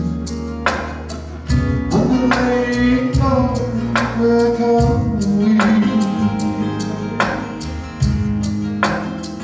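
Live Hawaiian music: male voices singing over strummed guitars and steady bass notes, with a strum coming regularly under a second apart.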